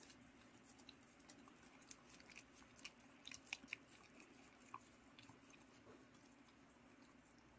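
Faint clicks and smacks of a dog chewing and licking steamed sweet potato from a hand, a few sharper ones about three to four seconds in, over a low room hum.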